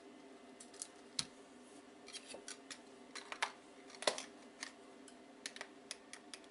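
Irregular small plastic clicks and taps as the parts of an Amiga tank mouse are handled and fitted back together, with two louder knocks about one second and four seconds in.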